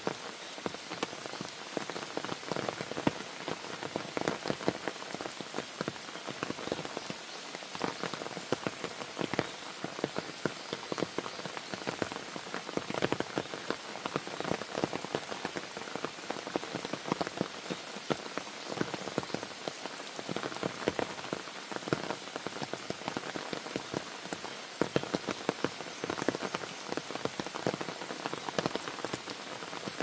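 Summer rain shower falling steadily on forest leaves and a dirt path, a dense even hiss thick with separate close drop hits.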